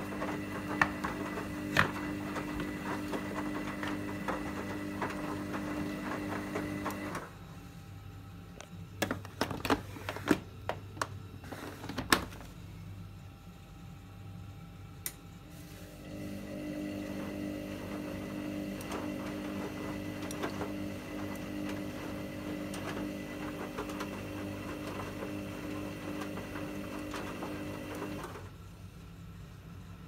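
Hoover front-loading washing machine in its main wash, the drum motor humming as it turns the drum. It stops after about seven seconds, with a scatter of clicks and knocks in the pause, then hums again for about twelve seconds and stops near the end.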